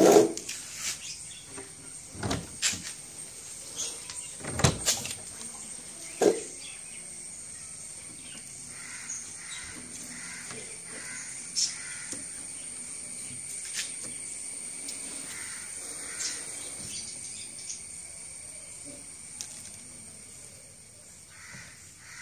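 A few sharp knocks and clunks in the first six seconds as the plywood incubator cabinet and its door are handled and opened. After that, a steady faint high hiss with a run of short repeated bird calls, crow-like caws.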